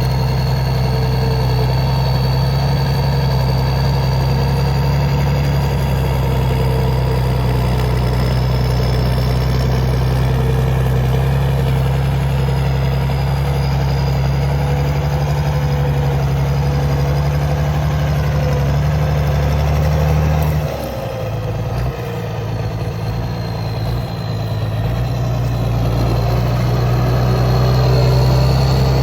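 Mercedes-Benz OM 366 six-cylinder diesel in a CBT 1105 tractor running steadily at work. About two-thirds of the way through, the engine note suddenly drops and wavers for a few seconds, then picks back up.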